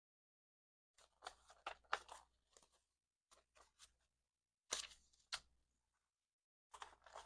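Paper banknotes being handled and counted, rustling and flicking in several short bursts separated by brief silences.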